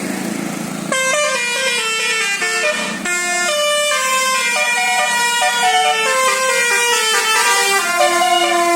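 Tour bus's telolet basuri musical horn playing a melody of held, stepped notes, starting about a second in after a moment of noise.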